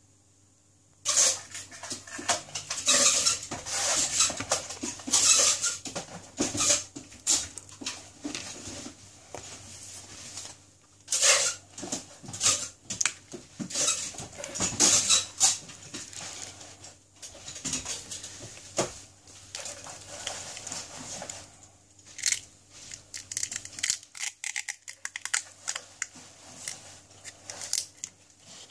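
Small hand tools clicking and scraping against the parts of a Samsung Galaxy S7 smartphone during disassembly: irregular bursts of handling noise that start about a second in.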